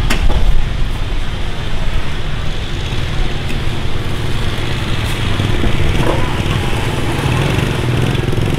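Steady low engine rumble of motorbikes in the street over general market bustle, with a sharp metal clank from a cooking pot right at the start.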